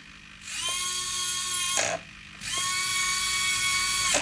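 Small electric drive motors of a radio-controlled Bruder toy skid steer whining as they turn the tires, in two runs of about a second and a half each with a short pause between; each run rises slightly in pitch as it starts.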